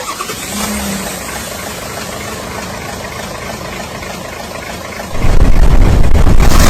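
A steady engine-like running sound with hiss, then about five seconds in a much louder, dense low rumble starts abruptly and keeps going.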